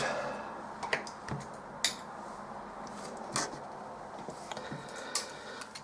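A handful of light, sharp clicks and taps of small tools and a resistor being handled while it is fitted to a circuit board, about five in all, spread out.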